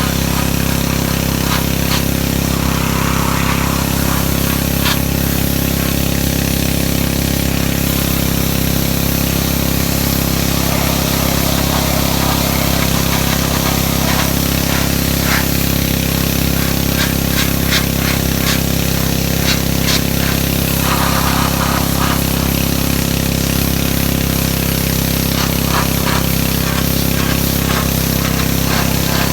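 Pressure washer running steadily: a constant motor drone under the hiss of the water spray, with scattered small ticks.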